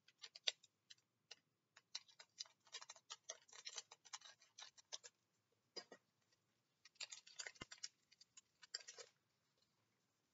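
Faint crinkling and clicking of a Pokémon TCG booster pack's foil wrapper being handled and opened by hand, in two bunches of quick crackles.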